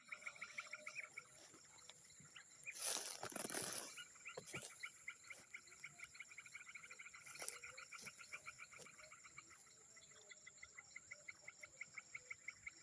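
A chorus of frogs calling in rapid repeated pulses, over a steady high-pitched insect drone. A brief louder burst of rustling noise comes about three seconds in.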